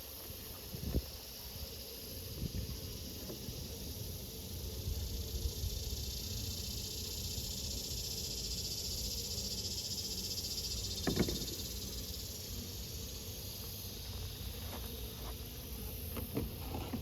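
A steady high hiss that swells and fades in the middle, over a low rumble, with a single knock about eleven seconds in and a few small clicks near the end.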